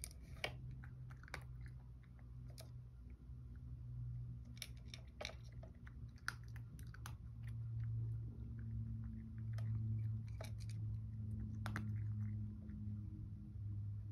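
A cat eating from a ceramic bowl: irregular, crisp crunches of chewing, over a low steady hum that grows louder in the second half.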